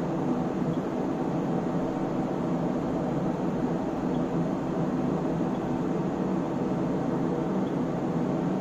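Steady whir and hum of cooling fans in bench electronic test equipment, unchanging throughout, with a few faint clicks from front-panel buttons being pressed.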